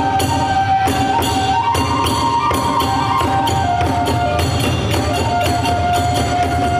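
Iwami kagura hayashi: a bamboo transverse flute holding a melody that steps between long notes, over a steady quick beat of drums and small hand cymbals.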